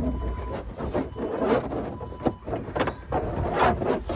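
Irregular clicks, knocks and rubbing of a rigid clip-in window tint panel being worked into a car window frame, over a steady low hum.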